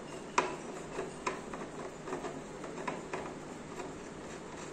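Tapered wooden furniture legs being screwed by hand into mounting plates on the underside of a flat-pack TV unit: irregular light clicks and ticks as they turn, the sharpest about half a second in.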